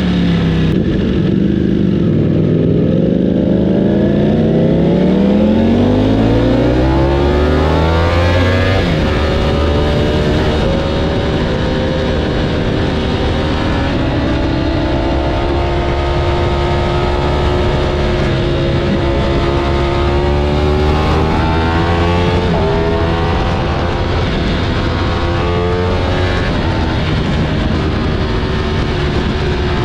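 Ducati Panigale V4 motorcycle's V4 engine running through a Termignoni race slip-on exhaust. Its pitch dips briefly, climbs steadily for several seconds as it accelerates, then holds a fairly steady note with small rises and falls.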